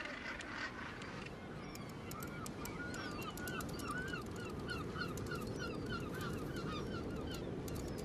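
Seabird colony: harsh northern gannet calls for about the first second, then a regular series of short repeated calls with sharp clicks among them, over a steady low rumble.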